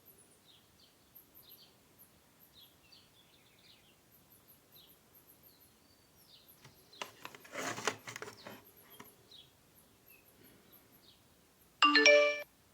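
A loud, short ding near the end, a bright tone with several pitches lasting about half a second. Before it, about a second and a half of noisy rustling comes in the middle, and faint high chirping runs throughout.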